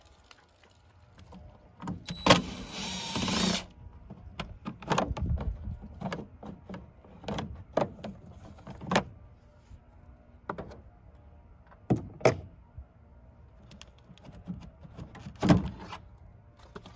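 Plastic clicks, knocks and rattles of a Duramax truck's intake airbox being opened and the round air filter element pulled out by hand, with a harsh scraping rush lasting a bit over a second about two seconds in.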